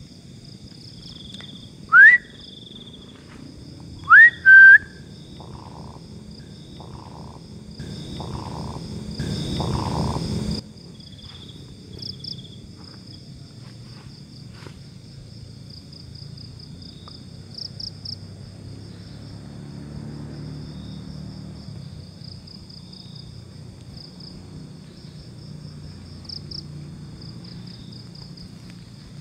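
Two short, loud, rising human whistles, one about two seconds in and another about four seconds in that rises and then holds its note, over a steady high chorus of crickets and other night insects. A louder stretch of noise follows around eight to ten seconds in.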